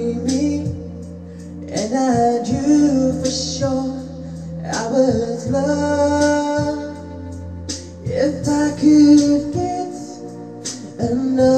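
Music: a solo voice singing a slow melody in long held notes over steady sustained accompaniment.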